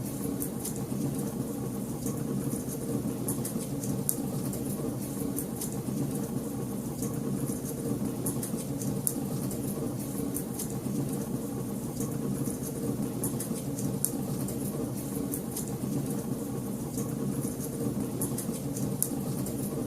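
Wood fire crackling in a fireplace: frequent irregular sharp crackles and pops over a steady low roar of the flames.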